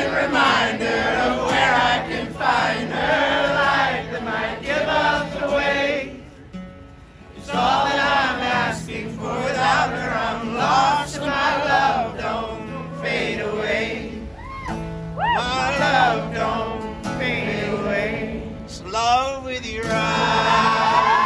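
Several men singing a song together in harmony, accompanied by a strummed acoustic guitar and an accordion, with a brief break in the music about six seconds in.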